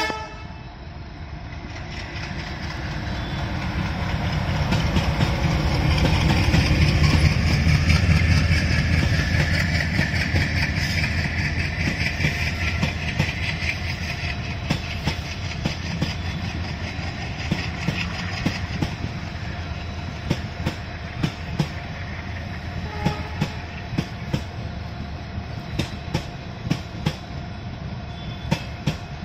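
Passenger express train running through a station at speed without stopping. The locomotive's rumble swells and peaks about seven seconds in, then the long rake of passenger coaches streams past with a regular clickety-clack of wheels over rail joints.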